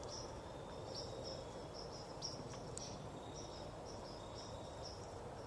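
Crickets chirping: short high chirps repeated in runs at one steady pitch, over a faint outdoor hiss. A faint click or two a little past the middle.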